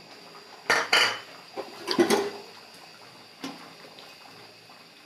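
A spatula stirring chicken in a milky curry sauce in a wide pan, with the sauce sloshing. It knocks and scrapes against the pan in loud strokes about one and two seconds in, and once more, more lightly, about three and a half seconds in.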